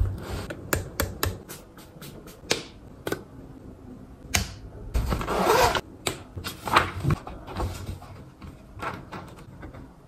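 Small toiletry items and a pen being picked up and handled at a desk: a string of light clicks and taps, with a brief rustle about five seconds in.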